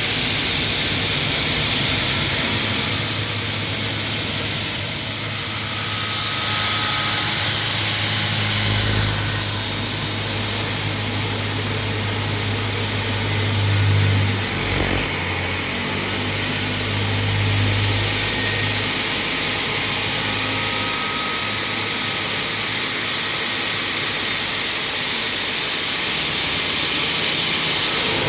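Aluminium profile cutting machine with a 450 mm belt-driven saw blade, running with a steady high whine and loud whooshing noise. The whine dips briefly in pitch about fifteen seconds in, as if under load.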